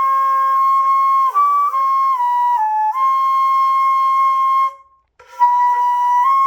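Daegeum, the Korean transverse bamboo flute, playing a slow melody in long held notes that step up and down. There is a short breath pause about five seconds in.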